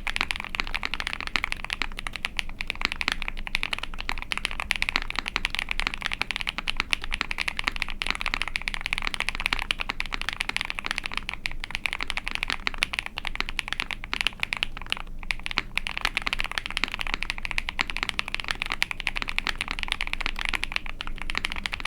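Continuous fast typing on a mechanical keyboard: an ai03 Vega with a POM plate, lubed and filmed Zaku linear switches and GMK keycaps, clacking steadily with many keystrokes a second.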